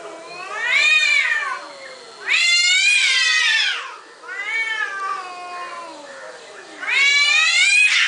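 Two domestic cats yowling at each other, face to face, in four long drawn-out calls that rise and then fall in pitch.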